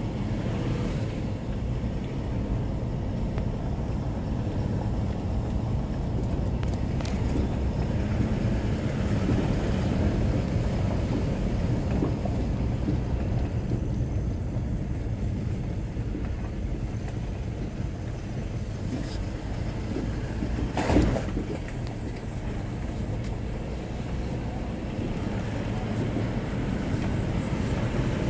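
Steady low rumble of an SUV's engine and tyres on brick paving, heard inside the cabin while driving slowly. A single sharp knock sounds about three-quarters of the way through.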